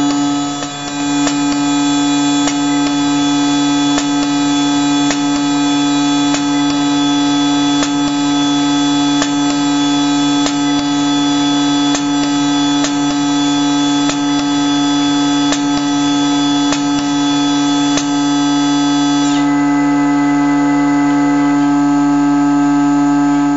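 CNC engraving machine running with a steady high-pitched whine, crossed by light clicks at an even pace of a little under two a second as the cutter engraves a scale into a plastic plate. Near the end the highest part of the whine drops away.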